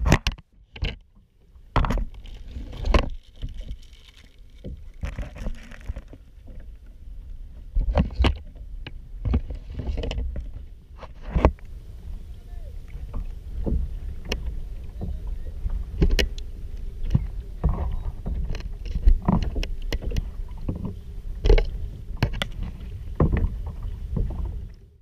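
Sea water slapping and splashing against a small plastic kayak's hull, with irregular sharp knocks and a steady low rumble of wind and waves on the microphone.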